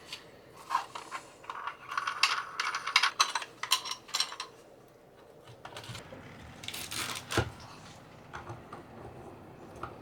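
Hard small parts and tools being handled, clinking and clicking. There is a quick run of sharp clicks and rattles in the first half, another short clatter around the middle, then a few scattered ticks.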